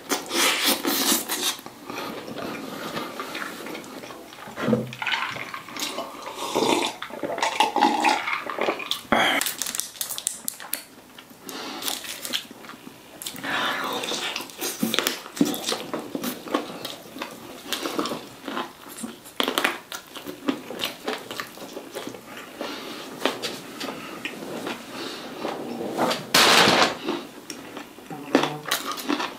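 Close-miked eating sounds: biting into and chewing a sauced fried chicken drumstick, with wet, smacking mouth noises and irregular crackles.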